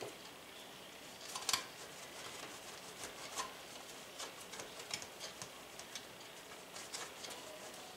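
Sandwich bread being grated on a metal box grater: faint, irregular short scrapes, the loudest about a second and a half in.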